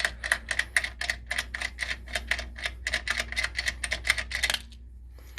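Socket ratchet wrench clicking rapidly and evenly, about eight clicks a second, as it works a 19mm socket on a wheel's lug nuts; the clicking stops about four and a half seconds in.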